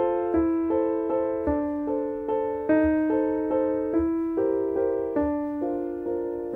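Background music: a keyboard playing a slow melody over chords, each struck note ringing and fading before the next.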